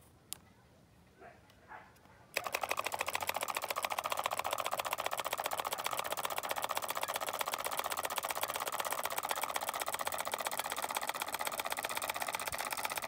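Homemade two-cylinder solenoid engine starting up about two seconds in, then running with a fast, steady mechanical clatter, after a single click.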